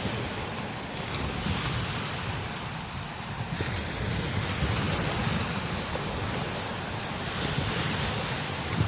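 Strong desert wind blowing over sand dunes: a steady rush that swells and eases in gusts, with low buffeting of the wind on the microphone.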